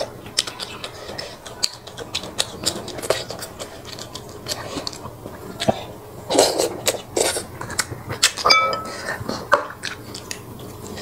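Close-up eating sounds of snakehead fish porridge: chewing, with many small clicks of chopsticks and a metal spoon against a glass bowl, and a short ringing clink about two-thirds of the way through.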